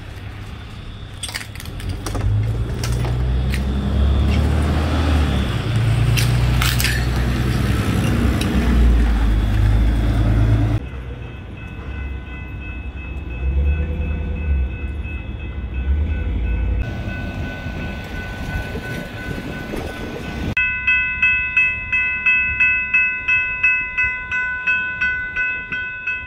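A heavy low rumble with scattered knocks and clatter, then, after a sudden change about eleven seconds in, a steady high ringing tone; about twenty seconds in it turns into a ringing that pulses about two and a half times a second, like an alarm bell.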